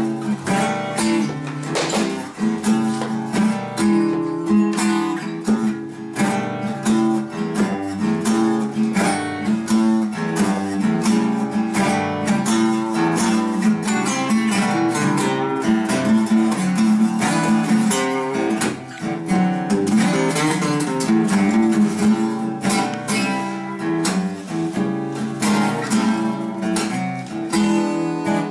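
Two acoustic guitars played together in a steady, rhythmic strummed accompaniment, without singing.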